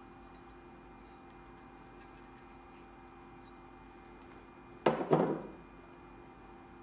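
A finned metal oil filter housing for a motorcycle engine set down on a workbench: two sharp clanks close together a little before five seconds in, ringing out briefly, over a faint steady hum.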